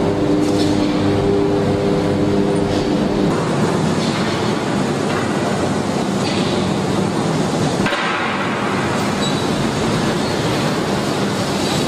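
Heavy slag-handling machinery running: a steady engine drone for the first three seconds or so, then a loud rumbling, rushing noise that changes abruptly twice.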